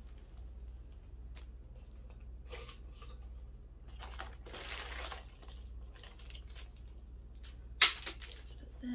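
A brown paper bag and the small plastic bags of screws inside it crinkling and rustling as they are handled, with a longer stretch of rustling about halfway through. One sharp click near the end is the loudest sound.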